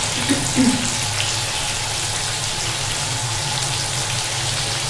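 Stuffed bitter gourds (karela) sizzling steadily as they fry in hot oil in an aluminium karahi, with a low steady hum underneath.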